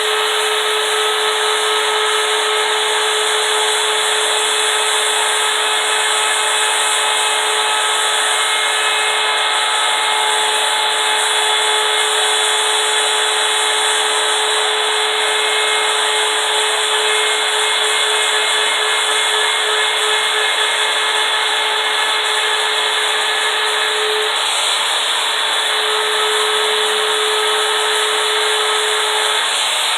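Electric wood router with a 30-degree V-groove carving bit running steadily while it routs letters into a wooden sign: a steady motor whine over the noise of the bit cutting, the whine easing briefly about three-quarters of the way through.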